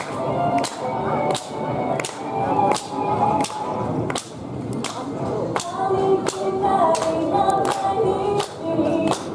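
Pop song played through a stage PA, with a sharp beat about every 0.7 seconds. A young woman's singing voice comes in about halfway through.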